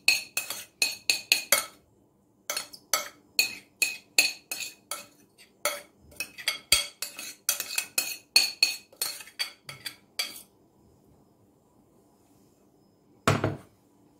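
Metal spoon knocking and scraping against a glass mixing bowl, a quick run of ringing clinks about three a second, stopping about ten seconds in. A short low thump comes near the end.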